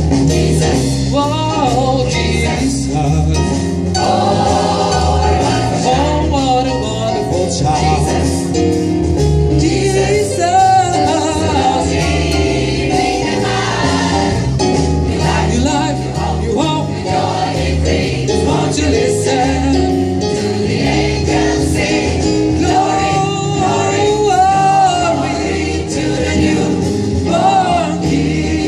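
Gospel choir singing a Christmas medley with steady instrumental accompaniment underneath.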